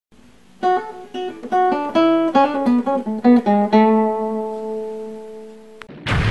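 A short guitar phrase of plucked notes ends on a chord that rings out and slowly fades. A loud burst of noise starts right at the very end.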